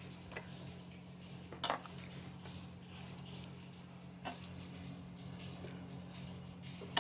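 A steel ladle clinking lightly a few times against a steel cooking pan and a plastic bowl while serving thick vermicelli milk pudding, over a low steady hum.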